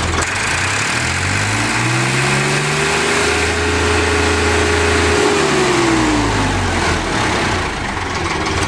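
Tractor diesel engine revved up from idle, held at high speed for a few seconds, then let back down to idle.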